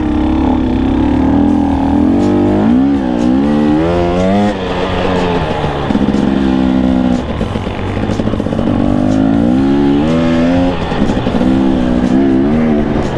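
Dirt bike engine riding a trail, its pitch rising and falling repeatedly as the throttle is opened and eased off, over steady wind and tyre noise.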